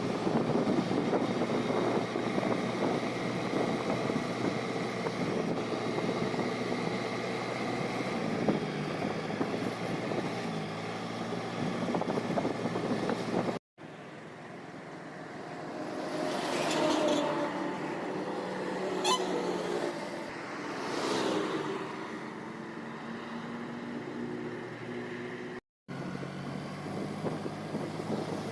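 Road traffic on a highway: vehicle engines and tyres running steadily, with vehicles passing close by and fading away in the middle part. The sound cuts out briefly twice, about halfway through and near the end.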